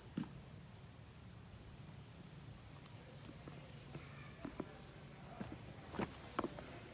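A steady high-pitched ringing tone, with scattered light clicks and knocks; a few louder knocks come about six seconds in.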